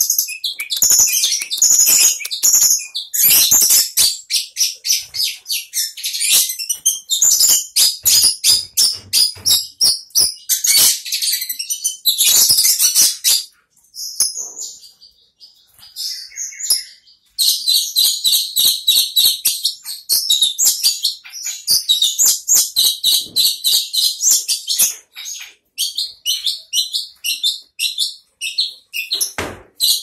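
Long-tailed shrike singing loudly in a rapid, continuous stream of high chirping notes. It breaks off for a few seconds about halfway through, then resumes.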